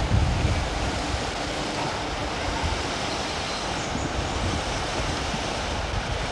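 Steady rushing of a shallow river pouring over a low weir, under wind rumbling on the camcorder microphone that buffets hardest in the first half-second.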